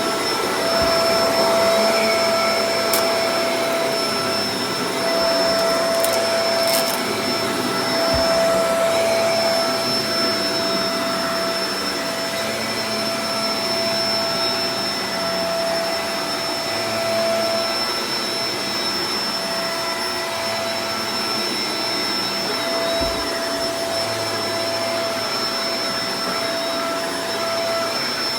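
Shark Professional Powered Lift-Away DLX (NV586) upright vacuum cleaner running steadily: a rush of air with a steady whine over it, easing slightly about ten seconds in, with a few faint ticks.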